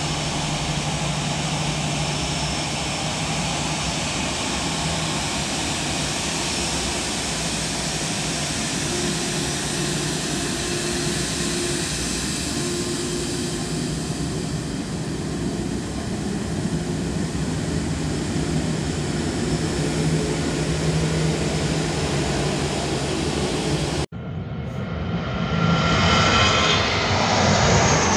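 Airbus A330-800's Rolls-Royce Trent 7000 jet engines running steadily as the airliner taxis. About 24 seconds in the sound cuts abruptly to the louder, rising noise of the engines at takeoff thrust as the aircraft lifts off.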